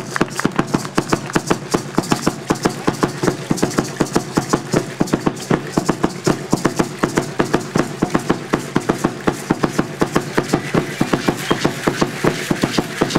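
Fast, steady drumbeat with rattles shaking in time: Aztec dance music, with the dancers' ankle rattles and hand rattles sounding as they step.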